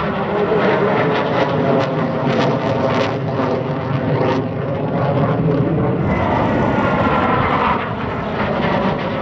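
Military jet fighter's engine noise as the jet flies a display pass overhead, loud and continuous, with a whine that shifts in pitch in the second half.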